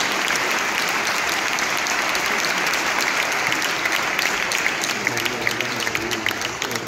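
Audience applauding in a large hall, a dense spatter of clapping that thins out and fades near the end.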